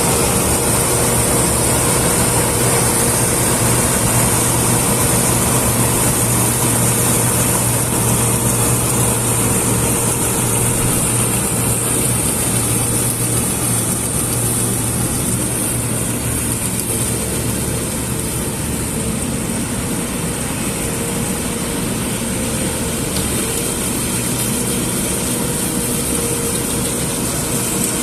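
A heavy farm machine's engine running steadily under load, with a constant high hiss over the engine hum.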